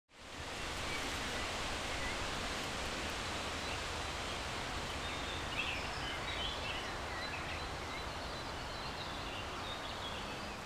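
Steady outdoor ambience of wind and rustling vegetation, fading in at the start, with faint bird chirps about halfway through.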